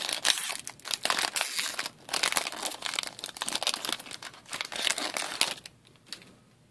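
Foil wrapper of a 2013-14 Upper Deck Team Canada hockey card pack crinkling and tearing as it is ripped open by hand. The crackling stops about five and a half seconds in.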